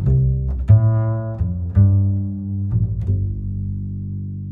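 Background music of low string notes: four notes, each starting sharply and ringing out, about one a second, the last one held and slowly fading.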